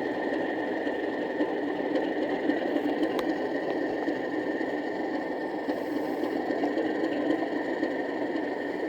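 Class 37 diesel engine idling, as played by the model locomotive's DCC sound decoder through its small onboard speaker: a steady running drone with a thin high tone held over it.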